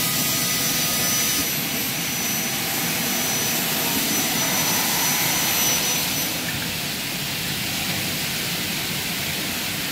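Double-head aluminium cutting saw running, its two motor-driven 450 mm blades spinning with a loud, steady noise. A thin high whine joins about a second and a half in and drops out about six seconds in.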